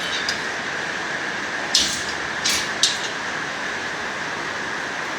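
Heavy rain falling with a steady hiss, with three short sharp noises about two to three seconds in.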